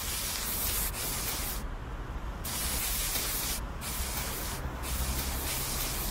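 Aerosol spray-paint can hissing in long bursts, broken by three short pauses, the longest about two seconds in.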